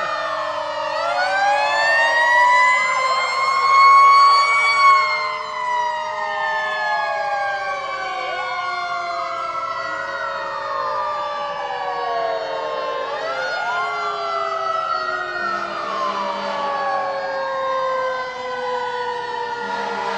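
Several fire engine sirens wailing together, their pitches rising and falling out of step with one another and loudest about four to five seconds in. They are sounded at the end of a countdown to mark the moment of the 1906 earthquake.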